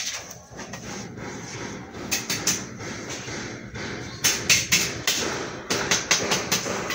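Irregular sharp taps and knocks over a steady background hiss, coming in a quick run of several strikes about four seconds in.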